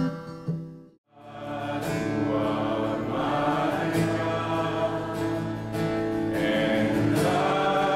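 A guitar song fades out to a moment of silence about a second in, then a man sings a worship song while strumming an acoustic guitar.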